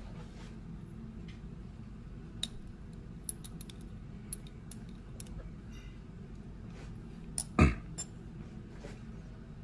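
Small glass clinks and ticks as a glass test tube is handled in a plastic test tube rack, with one louder knock about seven and a half seconds in, over a steady low room hum.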